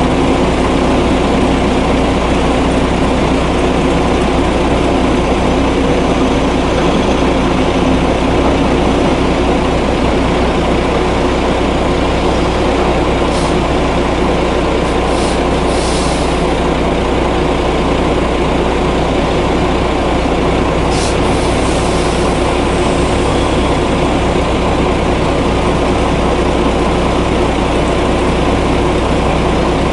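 Scania coal-hauling truck's diesel engine running steadily as the rig with two side-dump trailers rolls slowly. A few short high hisses of air come in the middle.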